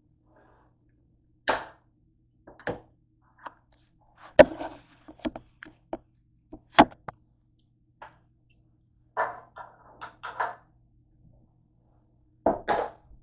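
Objects being handled and set down on a hard countertop: an irregular scatter of about ten knocks and clunks, the sharpest about four and a half and seven seconds in, with short rustles between them.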